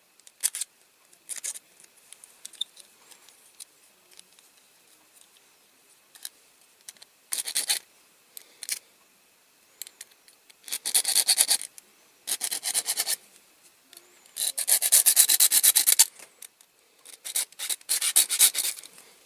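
Hand file rasping on the metal by a die-cast toy's wheel hub, in several bursts of quick back-and-forth strokes with short pauses between them. It is slow going on the hard metal.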